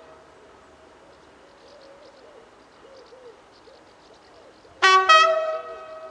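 Diesel railcar's two-tone horn sounded near the end: a short low note, then a higher note held a little longer, far louder than the faint steady hum of the distant railcar before it.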